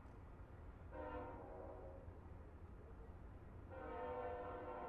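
Diesel locomotive air horn sounding two faint blasts of a several-note chord: a short one about a second in, and a longer one that starts near the end and keeps going. A steady low rumble runs underneath.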